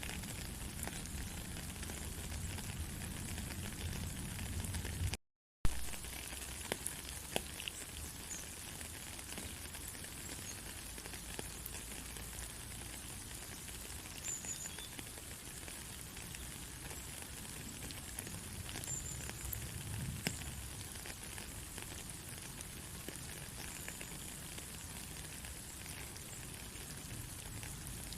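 Steady rain falling, an even hiss with scattered sharp drip taps. The sound cuts out completely for about half a second about five seconds in, and a few louder taps come just after.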